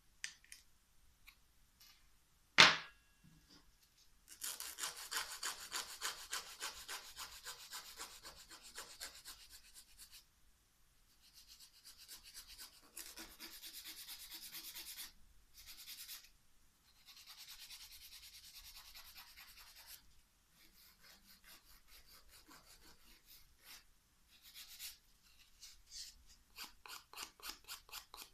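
Nail clippers snip through a fingernail once with a sharp click about two and a half seconds in. A nail file then rasps back and forth across the nail in fast, even strokes, in runs of a few seconds with brief pauses.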